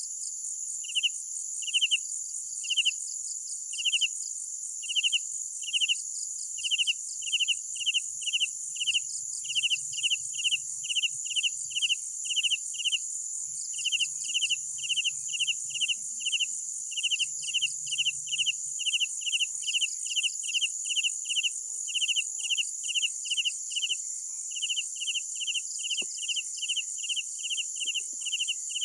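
Night chorus of crickets: a steady, high continuous trill with a separate, lower and louder chirp repeating on top. The chirp comes about once a second at first and quickens to nearly three a second.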